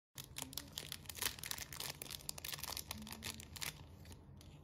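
Clear plastic packaging bag crinkling and rustling in irregular crackles as a hand handles it and draws small wooden keychain embroidery hoops out of it.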